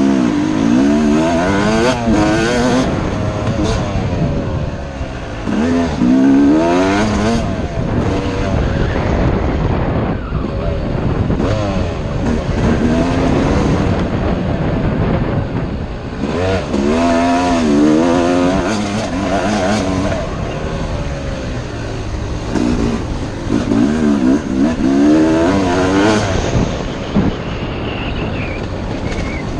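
Yamaha YZ250 two-stroke dirt bike engine revving hard and backing off over and over, its pitch climbing each time the throttle opens and dropping at the shifts.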